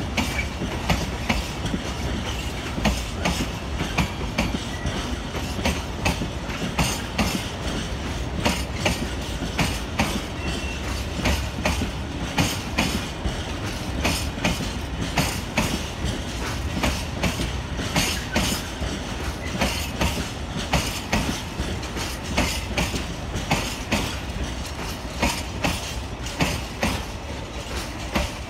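Freight train's tank wagons rolling past, their wheels clacking over the rail joints in a steady run of clicks over a low rumble.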